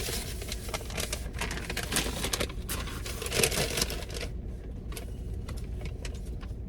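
Takeout food bags rustling and crinkling as they are handled and sorted. The crackling is dense for about four seconds, then only a few scattered crinkles.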